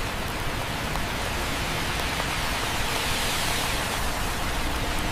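AI-generated (Google Veo 3) city ambience of steady rain with cars driving through it on a wet street, an even, unbroken hiss.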